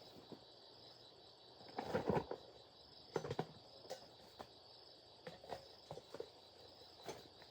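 Insects chirping steadily in the background, with irregular knocks and scuffs, the loudest about two and three seconds in.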